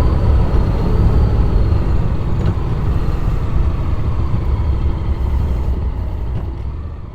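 Onboard ride sound of a Honda X-ADV 750 on the move: a loud, steady low rumble of engine and wind noise that fades out near the end.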